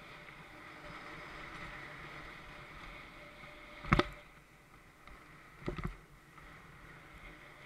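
Mountain bike rolling fast down a dirt trail: a steady hiss of tyres and rushing air. A sharp knock comes about four seconds in, and a quick cluster of knocks near six seconds, as the bike jolts over bumps.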